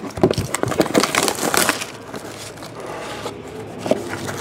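Cellophane shrink wrap being torn and crinkled off a trading-card box. There is a dense run of sharp crackles for about two seconds, then quieter handling of the box and wrapper.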